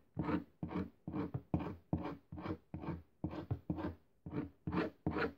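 Felt-tip highlighter rubbed back and forth along strands of hair pressed against a desk, a rhythmic scratchy rubbing of about three strokes a second.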